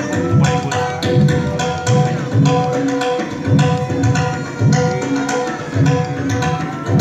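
Tabla solo in teental. The deep bayan strokes come back about twice a second under fast, sharp dayan strokes. A bowed sarangi plays the repeating lehra melody in held notes underneath.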